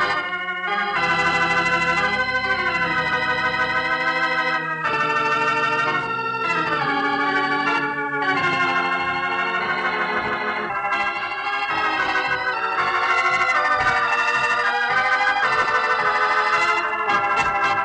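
Organ music closing out the radio program: a series of sustained chords, each held for a second or a few seconds before moving to the next.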